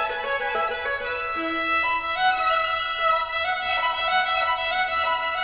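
Background music: a melody of long held notes that change pitch in steps.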